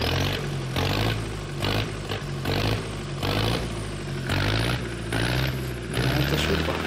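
Zetor 7201 turbo four-cylinder diesel engine running on a test, fitted with a 7701T injection pump set to a raised fuel delivery. Under the steady low engine note, a hiss swells and fades about once a second.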